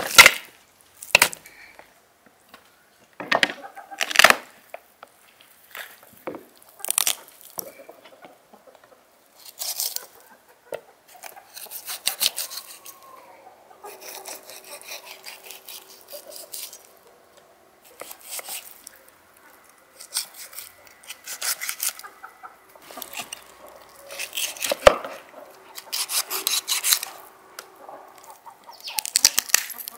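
Kitchen knife cutting up a raw chicken on a wooden cutting board: sharp knocks of the blade against the board, loudest near the start and about 25 seconds in, and repeated rasping strokes as it slices through skin and joints.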